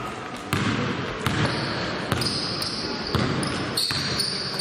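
A basketball bouncing on a hardwood gym floor during live play, several irregular bounces. High sneaker squeaks come in from about halfway through, over voices echoing in the hall.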